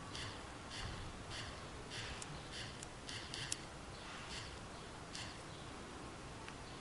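Repeated presses on a Window G22 touchscreen media player's scroll arrow, set to give vibration feedback on each touch: a run of short soft ticks, about one every half second or so, with one sharper click a little past halfway. The ticks stop about five seconds in.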